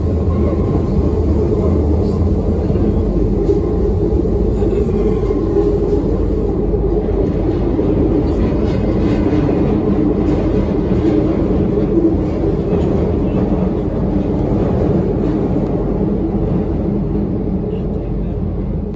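Paris Métro train running through a tunnel, heard from inside the carriage: a loud, steady low rumble and rattle of the moving car, easing off near the end as the train slows into a station.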